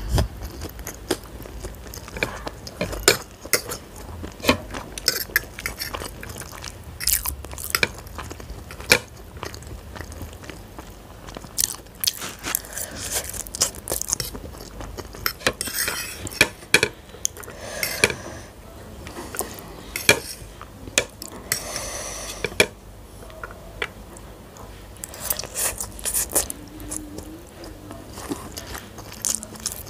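Close-up chewing of masala Maggi noodles, mixed with a metal fork clinking and scraping against a ceramic plate in many sharp, irregular clicks.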